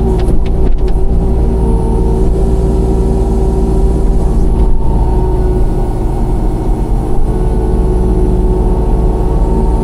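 Mini excavator engine running steadily while digging, with a steady whine over it and a few sharp clicks, most of them in the first second.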